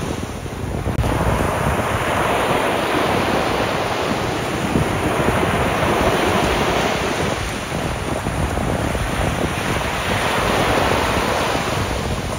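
Small ocean waves breaking and washing up a sand beach, a steady rushing surf that swells and eases as each wave comes in, with wind buffeting the microphone.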